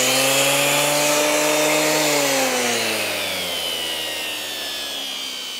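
A 200-watt corded electric sander running: its motor hum and whine hold steady, then sag slowly in pitch and loudness from about two seconds in.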